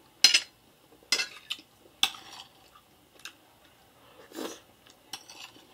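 A metal fork clinks and scrapes against a ceramic plate several times in the first two seconds while scooping up macaroni goulash, followed by softer clicks and close-miked chewing, with a short wet mouth sound about four and a half seconds in.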